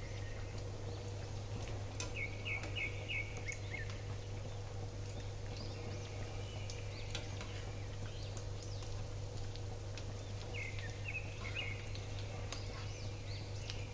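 Breaded bread patties shallow-frying in oil in a pan, a steady sizzle with small crackles, over a constant low hum. Birds chirp in quick runs twice, about two seconds in and again near ten seconds in.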